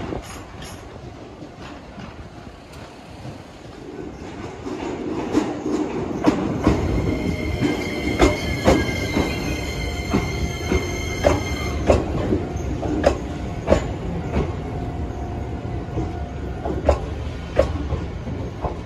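Shinkansen train running on the rails, growing louder about four seconds in, with a series of sharp clicks and a high, steady squeal that lasts about five seconds.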